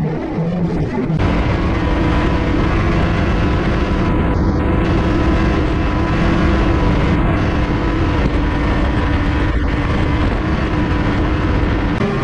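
Snowmobile running at a steady cruising speed, heard from aboard the sled: the engine holds a steady pitch over a loud, even rushing noise.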